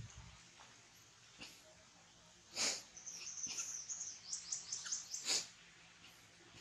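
A small animal's short, high-pitched squeaks and chirps. They come quicker about halfway through, with a few sharper cries.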